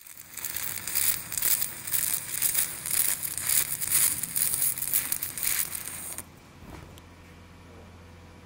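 Stick-welding arc burning an aluminum electrode on aluminum plate: a loud, uneven crackle and sputter that stops abruptly about six seconds in, leaving a low steady hum.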